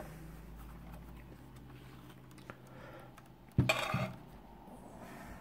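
Metal clattering briefly about three and a half seconds in as hard metal parts are handled on a workbench, over a faint steady low hum.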